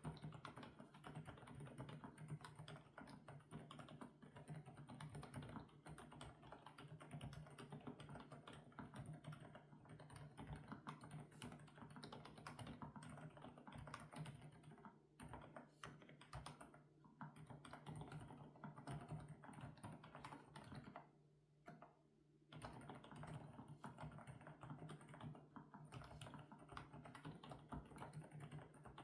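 Continuous fast typing on an FL-Esports OG98 mechanical keyboard with Kailh Coconut Latte switches, keystrokes following one another in quick succession, with a short pause about 21 seconds in.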